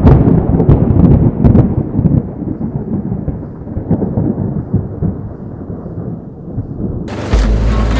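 Deep rolling rumble of thunder, loudest at the start with a few crackles, fading away over several seconds. Music starts near the end.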